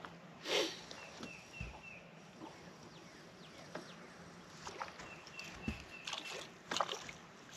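Small crappie being reeled in to the boat on a spinning rod: a few brief bursts of splashing and reel handling, with two runs of short, high, quick chirps.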